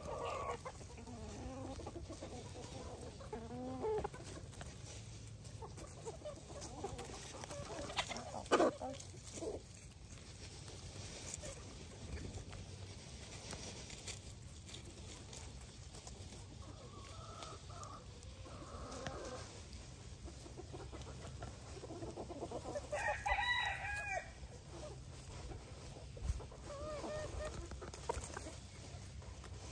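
Backyard chickens clucking and calling off and on, with one louder, longer call about three quarters of the way through. A couple of sharp taps come about a third of the way in.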